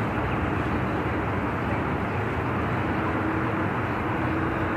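Steady outdoor noise of vehicles driving through deep floodwater, with a faint steady hum in the middle.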